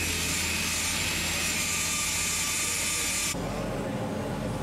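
Handheld rotary tool running at high speed with a cutting disc against brass sheet, a steady high whine over grinding noise. About three seconds in it cuts off abruptly and a gas brazing torch's flame hiss takes over.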